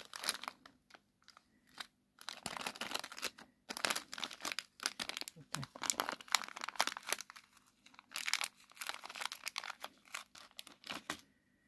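A small bag being handled and folded, rustling in bursts with short pauses between them.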